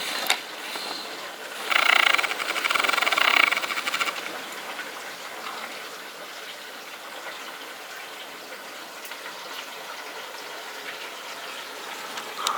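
Heavy rain falling as a steady hiss, with a louder rushing stretch of about two seconds near the start.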